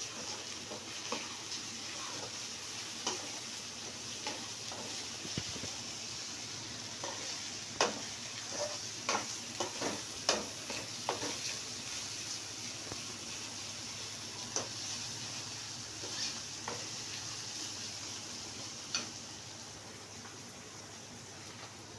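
Ginger paste sizzling in hot oil in a pan, with a spoon stirring and scraping against the pan in irregular clicks and knocks, busiest around the middle.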